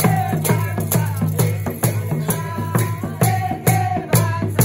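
Folk dance music: drums beating a steady dance rhythm of about two to three strikes a second, with a melody running over them.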